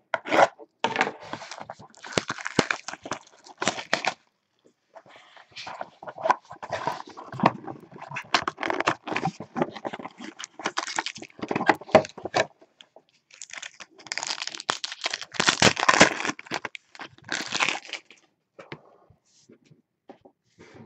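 A 2017 Contenders Optic football hobby box being torn open and handled: packaging crinkling and cardboard rustling and tearing in irregular bursts with sharp crackles, pausing twice and dying away near the end.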